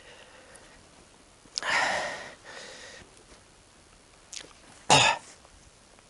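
Branches being handled and broken: a rustling swish about a second and a half in, then a sharp crack about five seconds in, the loudest sound.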